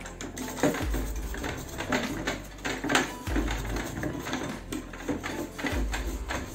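A mess kit scrubbed with a brush in a plastic bucket of soapy water, with repeated scraping, knocks and clinks, over background music.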